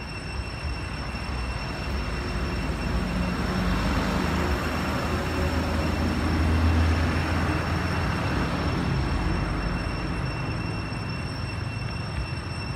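Rumble of a passing engine that swells to a peak about halfway through and then fades away, over a steady high-pitched whine.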